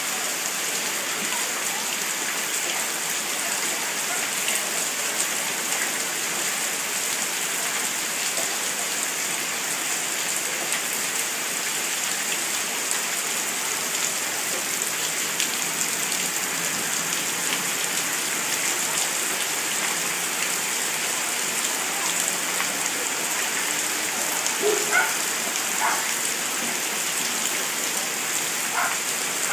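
Steady rain falling, an even hiss that holds at one level throughout, with a few faint brief pitched sounds near the end.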